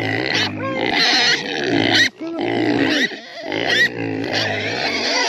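Several Idaho pasture pigs grunting and squealing almost without a break. These are hungry pigs calling to be fed.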